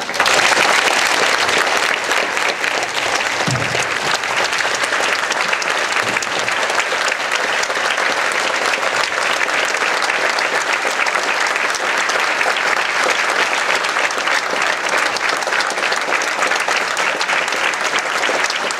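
Audience applauding, setting in suddenly and holding steady and loud.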